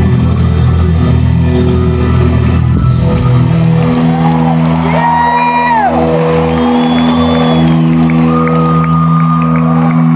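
Live rock band playing in an arena, heard from among the audience, with a reverberant, crowded sound: the band settles into long held chords a few seconds in, and a high note rises and falls about halfway through. Shouts and whoops from the crowd come through over the music.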